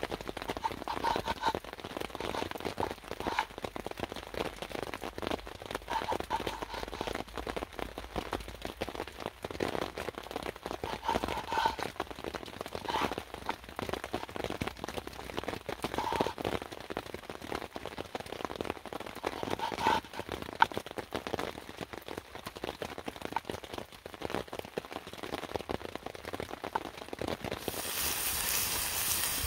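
Rain and water dripping in wet woodland: an irregular patter of drops. Near the end a steady hiss comes in.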